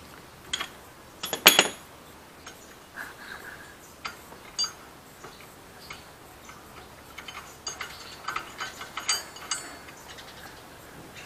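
Scattered metallic clicks and clinks of hand tools, a socket and ratchet at work on an ATV's rear hub lock nut. The loudest clink comes about a second and a half in, and a run of quicker clicks comes around eight to nine seconds in.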